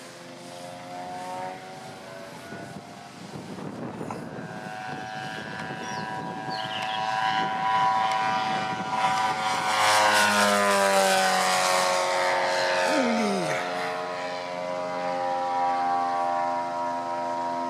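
156 cc engine of a large 3.8 m RC model Bellanca in flight, running steadily and getting louder as the plane approaches. Its pitch drops about ten seconds in as it passes overhead and moves away.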